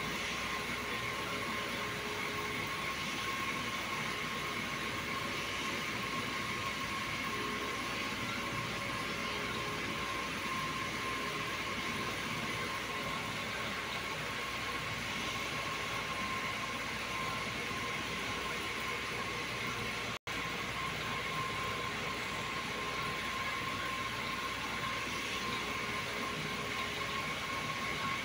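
A steady mechanical whir and hiss with a thin, unchanging whine. It cuts out for an instant about twenty seconds in.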